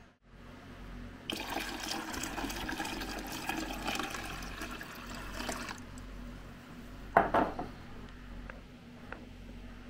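Water poured into the evaporative cooler's water tank for about four seconds. About a second and a half later comes one loud knock, then two faint clicks.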